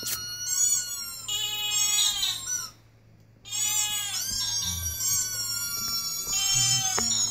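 Recorded high-pitched animal cries played through a TV speaker, a series of rising and falling wails. They stop for about a second three seconds in, then start again.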